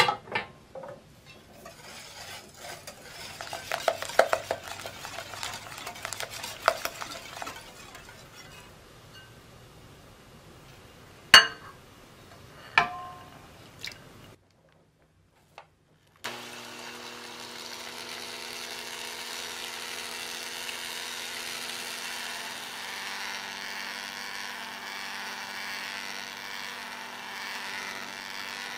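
Egg, sugar and honey mixture being stirred in a glass bowl set over a hot water bath, with light scraping and clinking and two sharp clinks. After a brief pause, an electric hand mixer starts about halfway through and runs steadily, whipping the warmed eggs to a foam.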